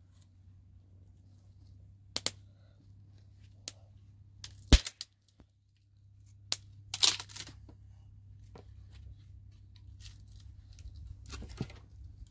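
Dry hazel branches cracking and snapping as they are broken up by hand for firewood: a series of sharp cracks, the loudest with a heavy thud about five seconds in and a quick run of cracks a couple of seconds later.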